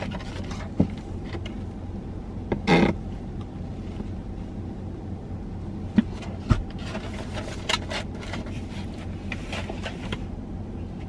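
Cardboard cookie box being handled and its lid flapped open, giving scattered knocks, clicks and a stretch of scratchy rubbing about halfway through, with a brief pitched squeak near three seconds in. Under it runs the steady low hum of a car cabin.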